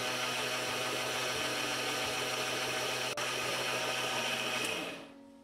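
Electric mixer grinder (mixie) motor running at speed, coarsely grinding a spice paste in its jar, with a steady hum. It winds down and stops near the end.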